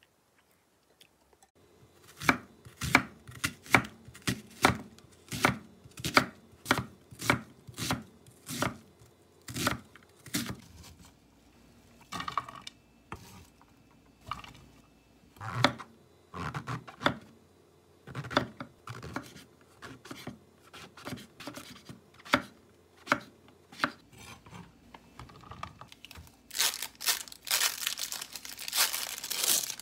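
Kitchen knife chopping a vegetable on a wooden cutting board, a steady series of sharp chops, then slower, irregular cuts. Near the end, crinkling plastic as the wrappers are torn off imitation crab sticks.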